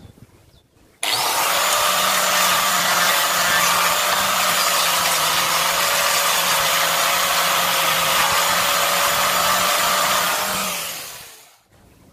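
Handheld electric rotary sander with a sanding disc, sanding the inside of a wooden bowl. It switches on abruptly about a second in, runs at a steady high whine, and winds down gradually near the end as it is switched off.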